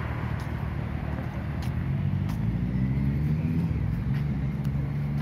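A motor vehicle engine running steadily, its pitch rising a little about two seconds in, with a few faint clicks.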